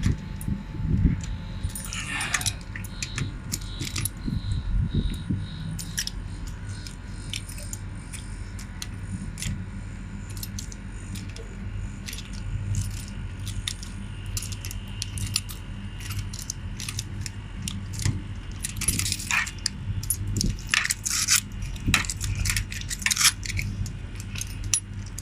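Air conditioner running with a steady low hum while metal tools click and clink against the service valves, the loudest clinks coming in a cluster near the end: valves being turned shut to pump the R32 refrigerant down into the outdoor unit.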